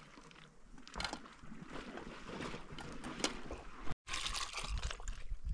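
Liquid sloshing and trickling, with a few light knocks, broken by a cut about four seconds in.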